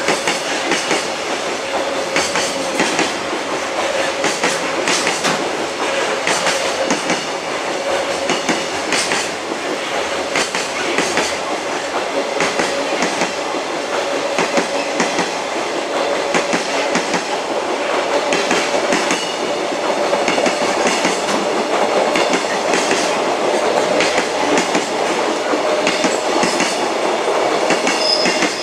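Freight train's container flatcars rolling past, wheels clicking over rail joints, with a steady squeal from the wheels that climbs slightly in pitch toward the end.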